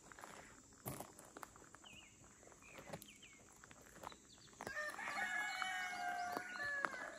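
A rooster crowing once, a long call of about two and a half seconds starting a little past the middle. Before it there are scattered light steps and clicks, with a few short high chirps.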